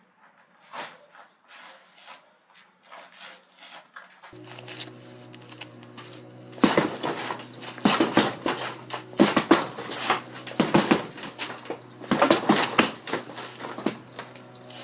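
Dishes and cutlery clattering as they are handled, in dense loud runs over the second half. Light clicks come first; about four seconds in, a steady hum starts and runs under the clatter.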